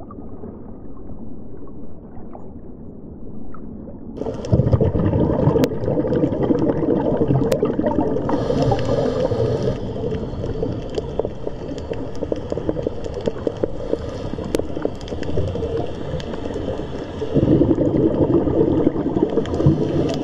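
Underwater water noise with bubbling and gurgling, dull and muffled at first, then louder and brighter from about four seconds in, with a few sharp clicks.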